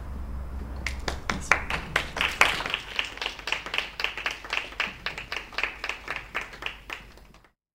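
Small audience applauding: a patter of separate hand claps that starts about a second in, peaks, then thins and fades, and cuts off abruptly near the end.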